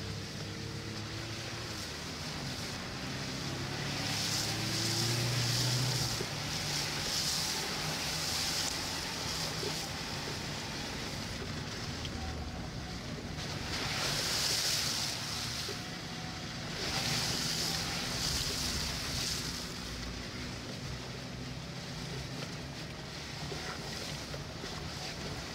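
A vehicle's engine running with its tyres driving through shallow floodwater, heard from inside the cabin. Water spray hisses up in louder surges several times.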